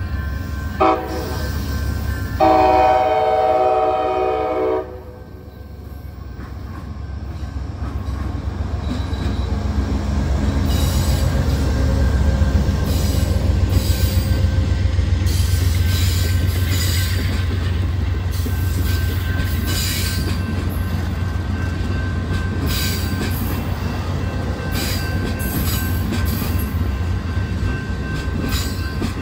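Amtrak passenger train's horn sounds a short chord blast, then a long one about two seconds later as the train reaches the grade crossing. The bilevel passenger cars then roll past with a steady rumble and rhythmic clicking of wheels over the rail joints.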